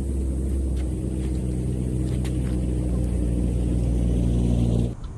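Steady low engine drone holding a constant pitch, cutting off suddenly near the end.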